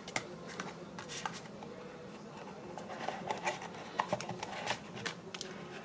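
Soft rustling and scattered light taps of a small cardboard product box being handled by hand, its lid being worked open.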